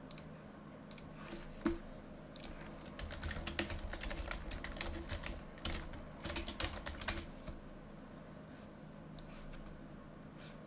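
Computer keyboard keys clicking: a few single taps, then a quick run of typing in the middle, then a few more taps.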